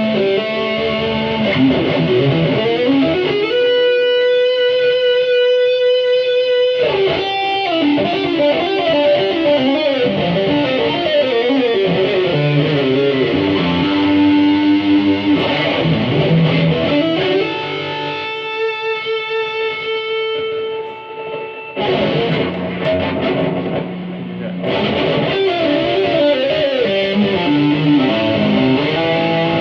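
Electric guitar played through a Boss GT-100 multi-effects unit: lead lines and phrases with a few long sustained notes, and a brief drop in level a little past the two-thirds mark.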